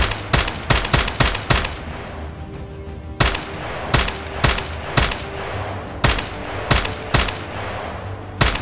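Dubbed-in rifle gunshot sound effects, each shot with a short echoing tail: a quick string of about six shots in the first second and a half, then single shots every half second to a second. Background music plays underneath.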